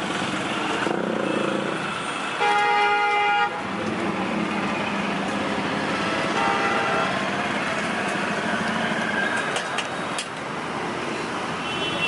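Roadside traffic running steadily. A vehicle horn sounds once, loud and held for about a second, about two and a half seconds in. A fainter horn note follows around six and a half seconds in.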